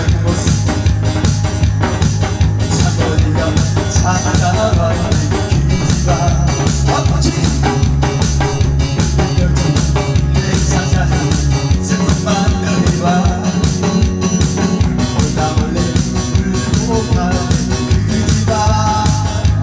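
Loud, upbeat backing music with a steady drum beat and heavy bass, played through a PA system as accompaniment for a pumba performer's song.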